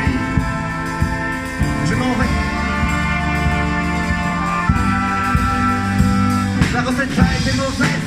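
Street band of flutes, saxophones, trumpets, sousaphone, accordion and acoustic guitar playing an instrumental passage: long held chords over a steady bass, with regular percussive hits, getting busier near the end.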